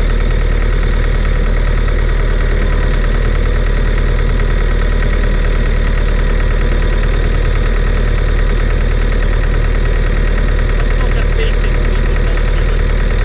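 Skid-steer loader's engine idling steadily.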